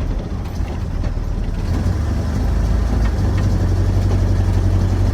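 Ford Ranger pickup's engine and exhaust running with a steady low rumble, heard from inside the cab, growing a little louder about halfway through.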